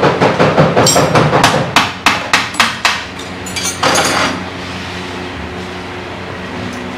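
Rapid hammer taps, about five or six a second, as a Honda CG 125 motorcycle's handlebar is being set. The taps thin out about three seconds in, with a last few strikes near four seconds, leaving a steady hum.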